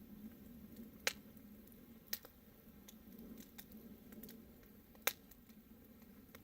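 Faint crackling of a fire, with three sharp pops about one, two and five seconds in.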